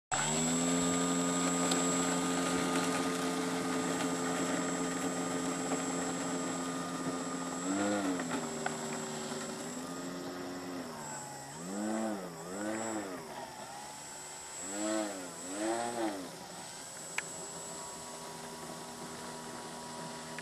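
Radio-controlled P-51 Mustang model airplane's motor running steadily at low throttle. It is revved briefly about eight seconds in, blipped up and down twice in quick pairs near the middle, then settles back to a steady idle.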